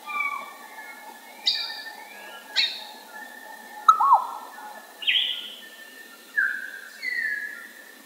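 African grey parrot giving a string of short whistled calls, about one a second, several sliding down in pitch. A sharp click about four seconds in is followed by a looping whistle.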